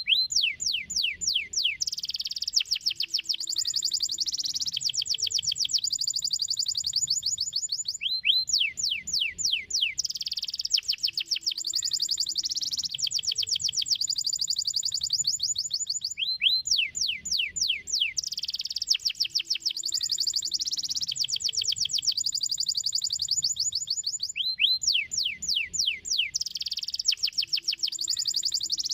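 Domestic canary singing. Each phrase opens with a run of quick notes sliding down in pitch, about five a second, then breaks into fast, high trills and rolls. The phrase comes round again about every eight seconds.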